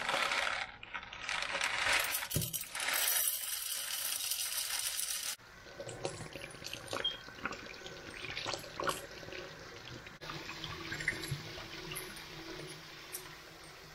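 Kitchen tap running into a stainless steel sink as a glass bottle is washed and rinsed under it. The water runs loudly for about the first five seconds, then quieter splashing with light clinks of glass against the steel.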